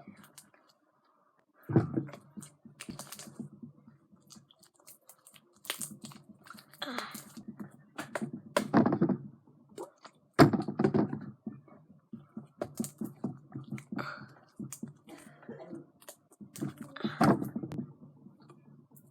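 Hands kneading still-sticky homemade glue slime, with irregular squishing and crackling clicks and a few sharper thuds, the strongest about two seconds and ten seconds in.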